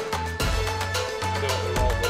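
Background music with a steady beat over a bass line.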